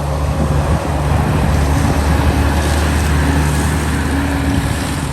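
An engine running close by with a steady hum, easing off shortly before the end, over a rushing noise.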